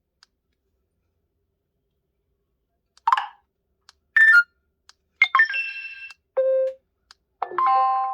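HTC U23 Pro ringtones played back one after another: a string of short, different electronic chimes and tones, each under a second, starting about three seconds in.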